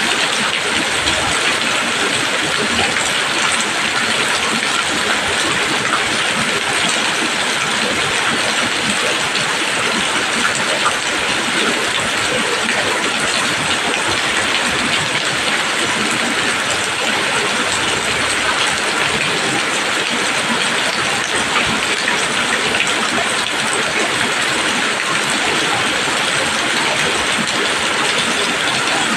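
Steady rain falling on leaves: a dense, even hiss of many drops, unchanging throughout.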